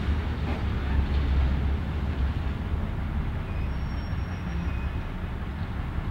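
Diesel switcher locomotive idling with a steady low rumble, slightly louder for the first couple of seconds.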